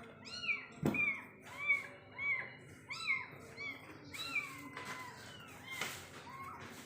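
Kitten mewing over and over: short, high calls that rise and fall, about two a second, with a thump about a second in.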